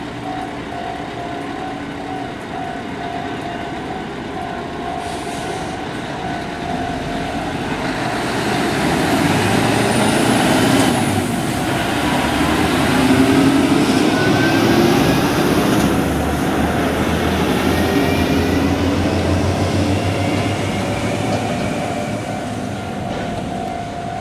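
Heavy double-trailer truck hauling two 40-tonne trailers passing: engine and tyre noise build up, are loudest about halfway through, then fade. A steady high tone runs underneath.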